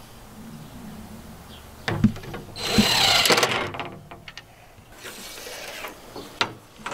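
Cordless drill running for about a second on a screw in a sheet-metal mounting plate, after a sharp click. A few small clicks follow as screws are set down on plywood.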